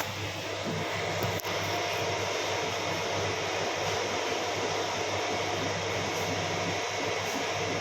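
Creality 3D printer running mid-print: a steady whir of its fans and motors over a constant low hum, with a single short click about a second and a half in.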